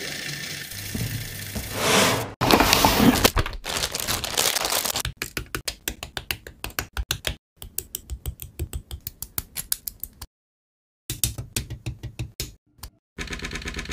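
Quick, irregular clicks and snips of hard plastic model parts being cut from a sprue with side cutters and handled with tweezers, several clicks a second, broken by a short silence about ten seconds in. The first few seconds hold a denser hissing noise that cuts off abruptly.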